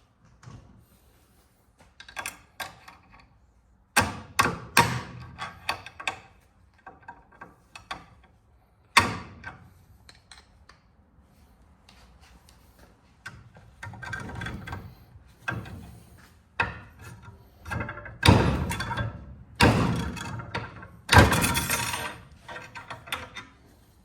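Knocks, clanks and scraping of metal being worked in a bench vise as a stuck brass end piece is pried at and struck, trying to pop it off a scrap part. Sharp irregular knocks come in clusters, the loudest about four seconds in, at nine seconds, and in a run near the end.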